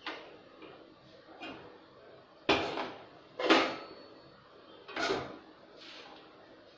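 A series of clanks and knocks of metal cookware on a gas stove: a tawa griddle lifted off the burner and a wire grill rack set down over it. The two loudest knocks come about halfway through.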